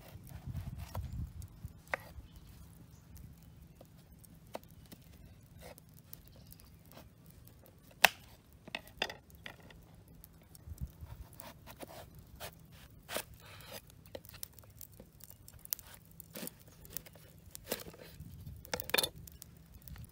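Chef's knife slicing vegetables on a wooden cutting board: irregular knocks of the blade through the vegetable onto the board, the sharpest about eight seconds in.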